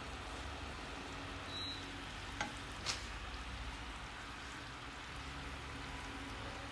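Jaggery syrup boiling in a pan, a steady bubbling sizzle as it cooks down toward the soft-ball stage. Two light clicks a little past two seconds and near three seconds in.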